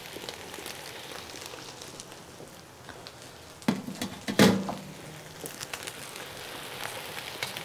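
Steady low sizzling hiss of drained rice in a hot, lightly oiled pot on the stove. About four seconds in come two metal clanks, the second louder with a short ring, as a stainless steel colander is set down in a steel sink.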